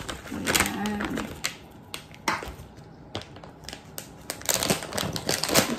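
Plastic bag of grated cheese crinkling as it is handled and shaken out over a baking dish, in irregular bursts of crackling that get busier near the end.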